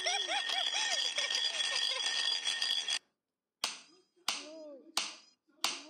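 Cartoon babies babbling and giggling over a steady high-pitched tone, which cuts off suddenly about three seconds in. After a short silence comes a series of sharp slaps of a ball being batted back and forth, four of them about two-thirds of a second apart, each followed by a brief baby coo.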